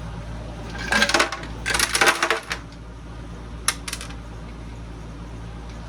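Small bronze pipe fittings and brass scrap clinking together as they are tossed into one pile: two bursts of metallic clatter about one and two seconds in, then two sharp single clinks.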